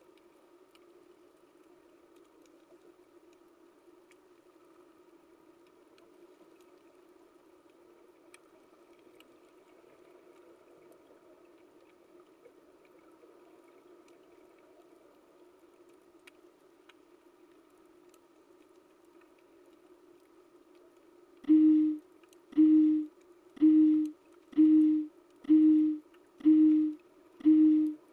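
Faint steady underwater hum, then about 21 seconds in a loud, low-pitched electronic alarm starts beeping about once a second: the countdown timer's alarm signalling that the time is up.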